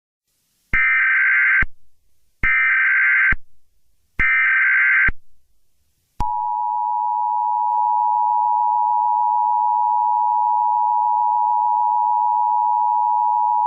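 Emergency Alert System tones: three identical bursts of the SAME digital header, each about a second long with short gaps between them, followed about six seconds in by the steady two-tone EAS attention signal. Together they signal that an emergency alert message is about to be broadcast.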